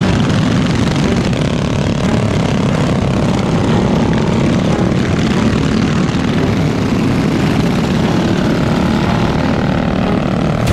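A pack of mini bike engines running together, a steady loud buzz as the group rides off.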